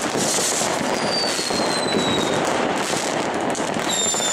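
Many fireworks going off at once, their bangs and crackles merging into a steady wash of noise. A whistling firework sounds about a second in, sliding slightly down in pitch, and a louder whistle starts near the end.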